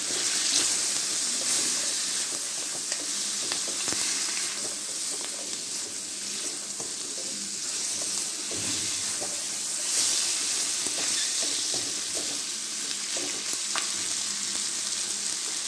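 Chicken pieces sizzling steadily as they sauté in butter with onions and pepper in a hammered stainless-steel pan. A spatula stirring and scraping against the metal makes faint clicks now and then.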